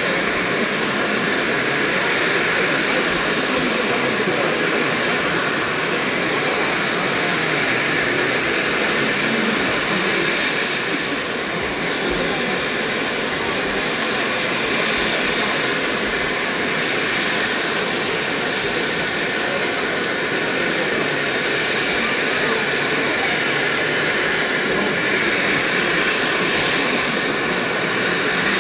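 Steady hiss of steam venting from Great Western Castle-class 4-6-0 steam locomotives standing in steam.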